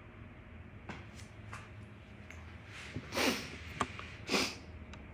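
Two loud sniffs right at the microphone, about a second apart, with light knocks and clicks from the phone being handled.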